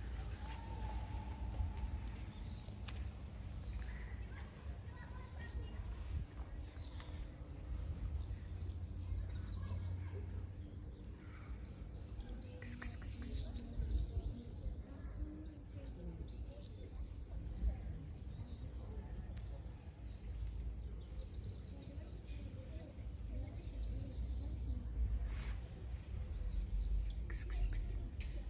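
Small birds chirping: many short, high chirps repeating throughout, busiest around the middle and near the end, over a steady low rumble.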